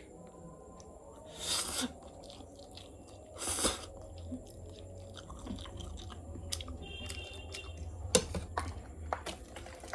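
A person eating a forkful of 3x spicy instant noodles: two loud slurps about one and a half and three and a half seconds in, then small wet chewing clicks and a sharp click about eight seconds in.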